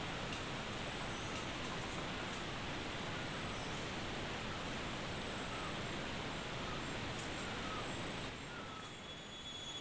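Steady hiss of forest ambience with faint, short chirps every second or so; the hiss drops a little near the end.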